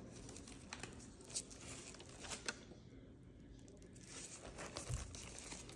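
Faint rustling and small clicks of a purse and its packaging being handled, with a low thump near the end.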